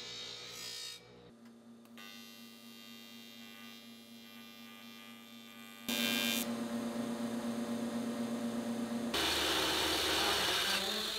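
Shop work in quick cuts. A bench-grinder wheel runs against the edge of an aluminum sheet for about a second, then a TIG welder hums steadily with its arc on aluminum, louder from about six seconds in, and near the end a cordless drill bores into the aluminum radiator shroud.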